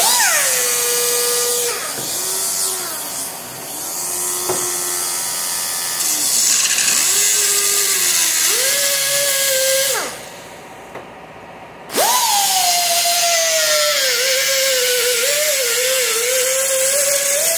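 Die grinder cutting through hardware cloth. Its whine drops in pitch as the blade bites, wavers along the cut, stops about ten seconds in, then starts again for a second cut, with a steady high hiss whenever it runs.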